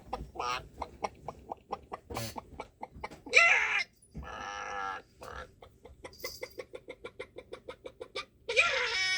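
Chickens clucking in quick runs of short clucks, broken by longer loud squawking calls about three seconds in and again near the end.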